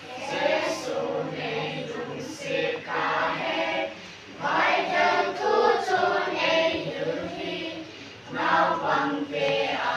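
Children's choir singing together, in phrases with brief breaks about four and eight seconds in.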